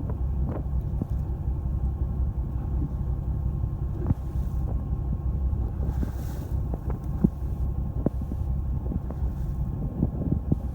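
Fishing boat's engine running steadily with a low rumble, wind buffeting the microphone, and scattered light knocks and clicks.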